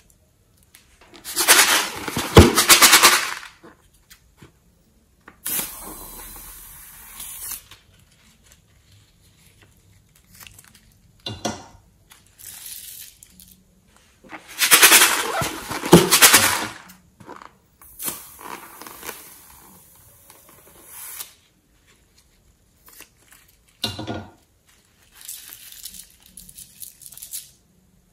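Sequins and glitter shaken out of small plastic tubes and packets onto slime, rattling and pattering in several bursts, loudest about two seconds in and again about fifteen seconds in.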